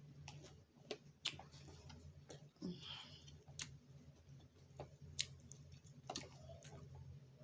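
Metal fork clicking against a glass salad bowl as bites are picked up, about eight irregular sharp clicks, with faint chewing over a steady low hum.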